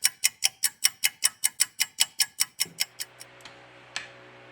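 Rapid, even clock-like ticking, about five ticks a second, fading out about three seconds in, with one last tick shortly before the end.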